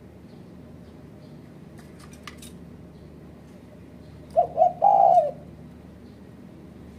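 Spotted dove (terkukur) cooing once, a little past halfway: two quick short notes, then a longer note that drops at its end. A few faint clicks come about two seconds in.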